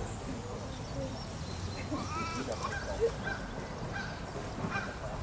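A dog whining faintly: a few short, high-pitched whines.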